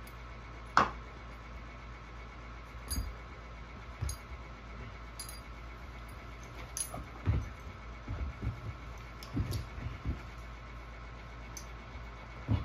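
A dog and a puppy play-wrestling on a rug over a wooden floor: scattered thumps and knocks of paws and bodies, the sharpest about a second in and a cluster of them in the second half, over a faint steady hum.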